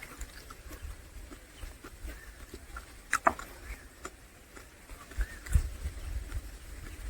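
A person chewing and smacking while eating, close to the microphone: scattered wet mouth clicks, a sharper click about three seconds in, and a few soft low thumps.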